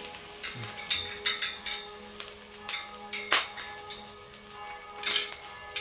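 Metal grill tongs clicking and clinking against a swing grill's wire grate and chains as a steak is turned, in scattered sharp clicks. Quiet background music with steady held notes plays beneath.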